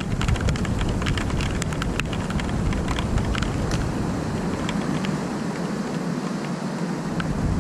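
Steady rain falling during a thunderstorm, with many close drops ticking near the microphone. A low rumble runs underneath, dropping away about halfway through and returning near the end.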